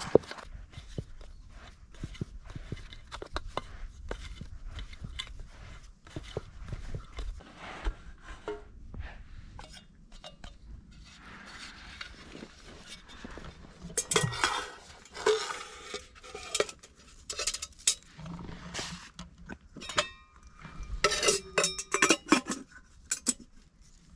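Metal camp cookware and utensils clinking and clattering as they are handled. There is a long run of knocks and clinks, busiest and loudest in the second half, and a few strikes ring briefly.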